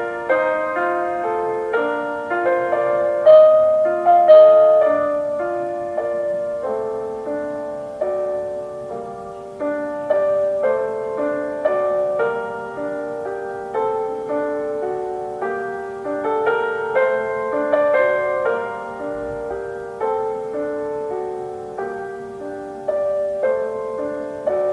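Solo piano playing a gentle classical piece, notes struck one after another and decaying, with a few louder accents in the first few seconds.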